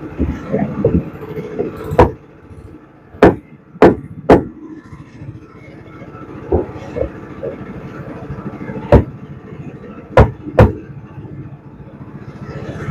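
A large knife chopping down onto a wooden block as small tuna are cut to mark them: seven sharp chops in uneven groups, with a few lighter taps between. A steady hum runs underneath.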